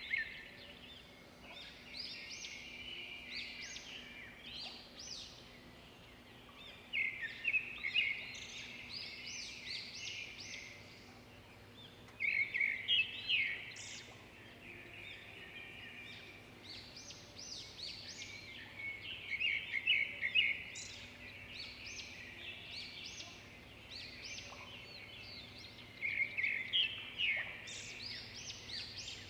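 Bird song: phrases of quick chirps and trills, a new phrase about every five to seven seconds, each starting loudest and trailing off, over a faint steady low hum.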